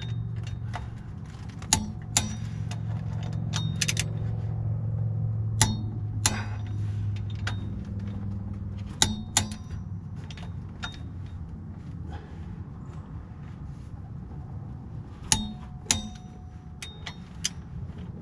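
Sharp metallic clicks of a click-type torque wrench and socket as the flywheel-to-crank bolts are re-checked at torque, one or two clicks per bolt at irregular intervals, over a steady low hum.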